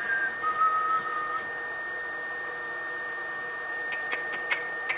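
A person whistling a few held notes, stopping about a second and a half in. Near the end come a few light clicks of small wooden pieces being set down on the workbench.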